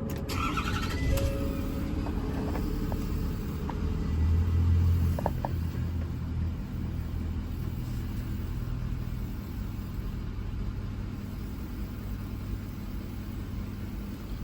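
Ford 6.7-litre Power Stroke turbo-diesel V8 starting up, surging briefly about four seconds in, then settling into a steady idle.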